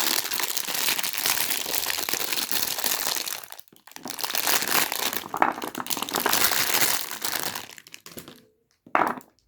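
Soap wrapper crinkling and crackling as it is handled and pulled off a bar of soap, with a short pause partway through; it dies away near the end, followed by one brief rustle.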